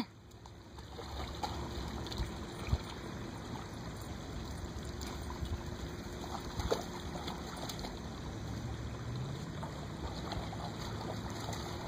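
A dog wading into a pond and swimming, faint sloshing and splashing of water over a steady low background rumble.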